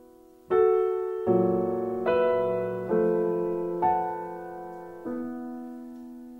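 Solo piano playing a slow sequence of six chords, struck about a second apart, each ringing and fading; the last is held and dies away slowly.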